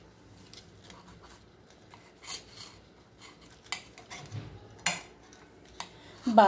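Table knife cutting through a soft egg-and-flour paratha on a plate, the blade scraping and clicking against the plate a few times, with one sharp click about five seconds in.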